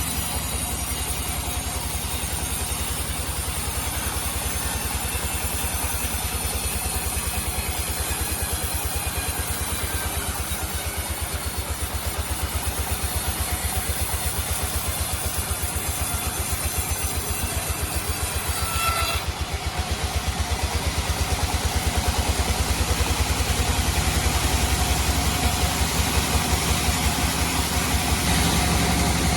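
Sawmill machinery running: an engine beats with a steady, rapid pulse under a high thin whine, and the whine changes abruptly about two-thirds of the way through.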